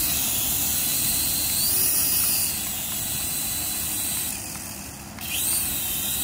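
Small electric motors of a toy RC helicopter whirring as the rotor blades spin, a high whine that rises and eases back twice as the throttle is worked.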